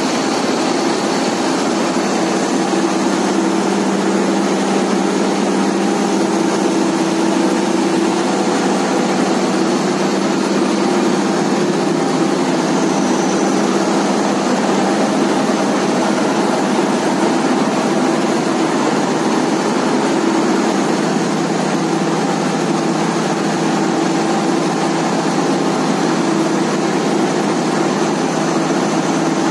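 A ship's large turbocharged marine diesel engine running hard under heavy load, heard close up in the engine room as a loud, steady drone. It is being forced to drive an overloaded vessel that has run aground. Its tone drops slightly about two-thirds of the way through.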